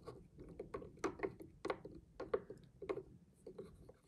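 A plastic toy seashell knocking and tapping against the inside of a plastic cup of water as it is swirled by finger, in irregular dull knocks several a second, to dissolve its colour-change coating.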